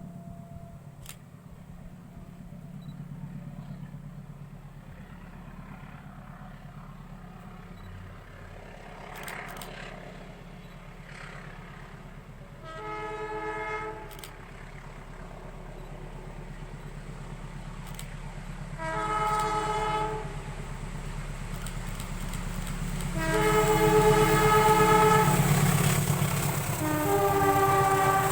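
Melodious multi-note horn of a CC203 diesel-electric locomotive sounding four times: two short blasts, then a longer one of about three seconds, then another starting near the end. Under the horn, a low diesel engine rumble grows louder as the locomotive approaches.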